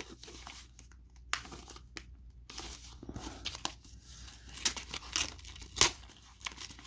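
A paper envelope being torn open by hand in short rips, with paper crinkling. The rips are sparse at first and come louder and closer together in the second half.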